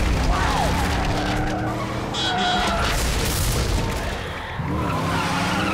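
Animated action sound effects of cars racing: engines running and tyres skidding.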